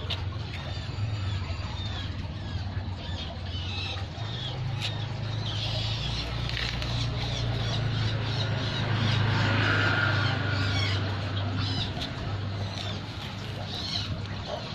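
Birds chirping in short repeated calls over a steady low hum.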